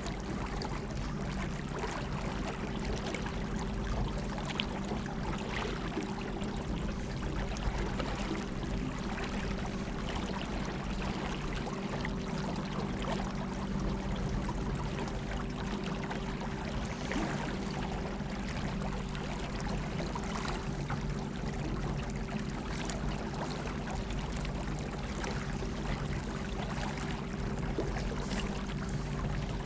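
A 50-pound-thrust electric trolling motor hums steadily while water rushes and splashes along the boat's hull.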